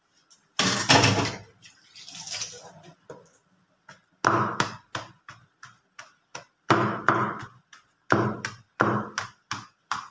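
Stone pestle pounding boiled taro and grated coconut in a plastic basin: a series of dull thuds and sharper knocks, coming in irregular clusters as the taro is mashed.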